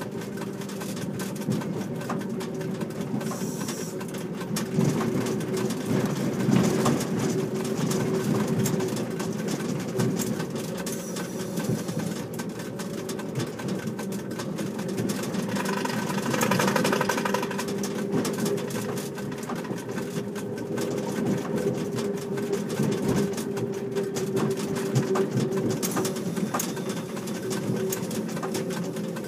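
Train Jaune electric narrow-gauge train running: a steady hum from the traction motors over the rattle of the carriage and wheels on the rails. A brief higher-pitched tone rises over it about halfway through.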